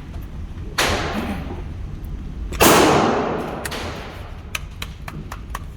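Two gunshots about two seconds apart, the second louder, each with a long echoing tail, followed by a few faint clicks.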